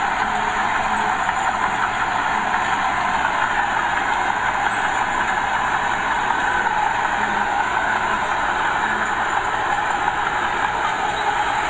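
Diesel engine of small earthmoving machinery running steadily at working speed.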